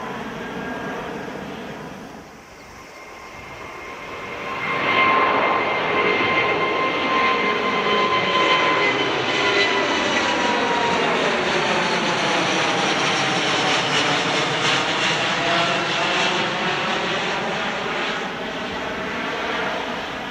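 British Airways Boeing 787-9 with Rolls-Royce Trent 1000 engines climbing out overhead after takeoff. The jet roar swells about four seconds in and stays loud, with an engine whine that slowly falls in pitch as the aircraft passes. Before that, the sound of a departing four-engined jet fades out.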